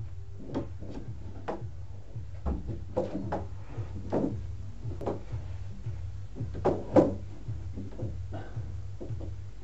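A string of irregular knocks and clunks as gray PVC conduit is handled and fastened against the wooden ceiling joists overhead, the loudest pair about seven seconds in, over a steady low hum.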